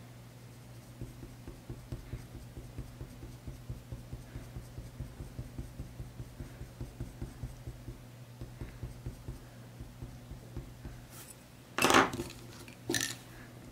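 Coloured pencil in a pencil extender making short, quick shading strokes on drawing paper: faint light scratching and tapping, about three strokes a second. Near the end the strokes stop, and two louder clattering knocks follow about a second apart as pencils and drawing things are handled.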